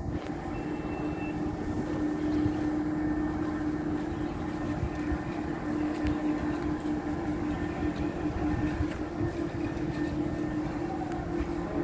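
Heavy diesel engine of a crawler crane running steadily under load, a constant droning hum over a low rumble.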